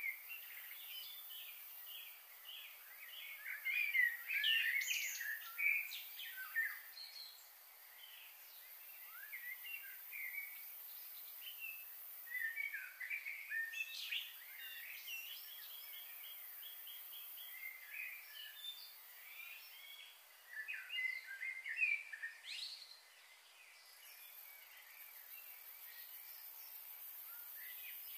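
Small birds chirping and calling in quick, overlapping phrases, busiest in a few clusters, over a steady faint hiss.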